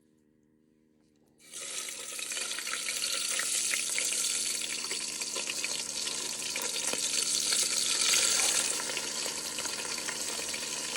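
Strips of marinated fish frying in hot oil: a steady, dense sizzle that starts abruptly about a second and a half in and carries on unbroken.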